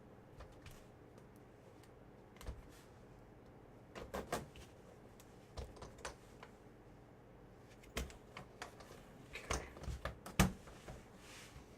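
Hands handling a trading-card box and its packaging: scattered light clicks and taps at an uneven pace, the sharpest knock about ten seconds in.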